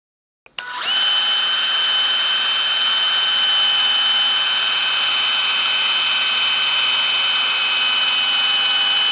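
Cordless drill spinning up about half a second in, its whine rising quickly and then holding steady at full speed. It is turning a pitch pine rod through a hole in a metal plate, which shaves the rod into a round dowel.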